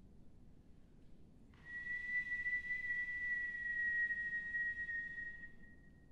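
A mezzo-soprano whistling one long, steady high note. It starts about a second and a half in, is held for about four seconds, sags slightly in pitch, then fades.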